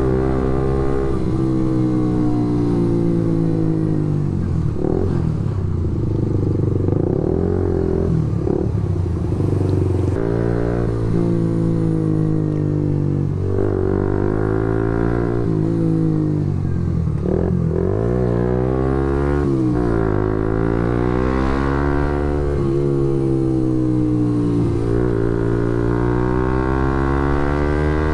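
Suzuki GSX-S150's single-cylinder four-stroke engine running through a loud aftermarket SARP exhaust while riding. Its pitch climbs and drops back again and again, as when the rider accelerates and changes gear.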